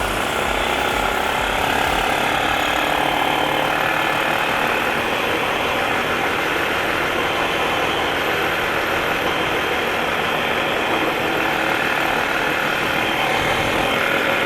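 ATV engine and drivetrain running steadily while it is ridden, a continuous even mechanical noise without breaks.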